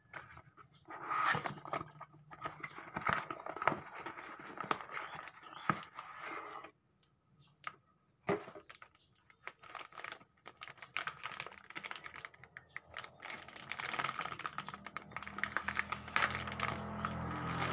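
Hands unpacking a replacement laptop battery: a cardboard box and foam wrap handled, then a crinkly anti-static plastic bag rustled. The sound is irregular clicks, scrapes and rustles, with a short pause about seven seconds in, and denser crinkling near the end.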